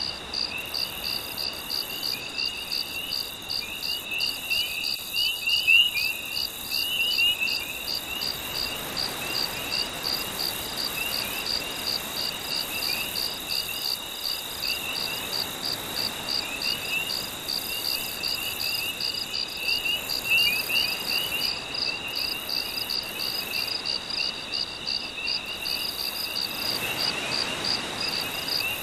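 A night-time chorus of crickets and other insects: a steady high chirp pulsing about two or three times a second over a continuous high trill, with quicker chirping calls just below it. Under them is a soft wash of gentle waves that swells a couple of times.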